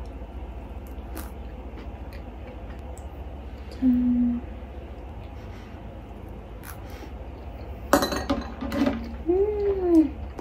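Eating at a table: a few light clinks of cutlery against a plate and cup, the strongest about eight seconds in, with short closed-mouth 'mm' hums of enjoyment, one about four seconds in and a few near the end, over a low steady background hum.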